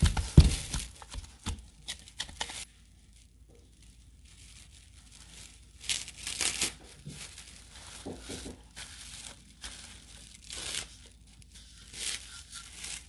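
Food wrap being pulled, torn and crinkled in irregular bursts as pie dough is covered to rest, loudest in the first couple of seconds.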